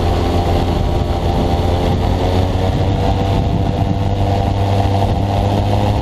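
Rotax 912 four-cylinder boxer engine and pusher propeller of an ultralight trike running steadily at high power during the takeoff roll, a continuous drone with a hiss above it.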